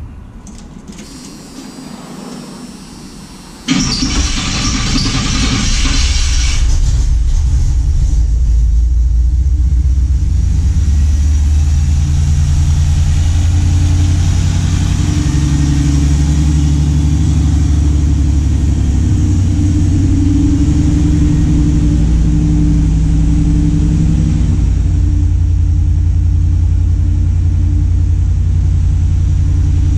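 1987 Chevrolet R10 pickup's engine starting about three and a half seconds in, with a few seconds of loud rushing noise as it fires, then running steadily at idle with a deep rumble. This is its first start on freshly installed spark plug wires after sitting a long time, with the ignition timing not yet set.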